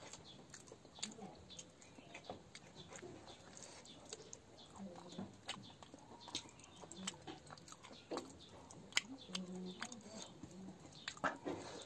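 Eating by hand from a metal bowl: fingers squishing and mixing a wet mash of rice, with chewing and lip smacks. It comes through as a faint, irregular string of wet clicks and smacks.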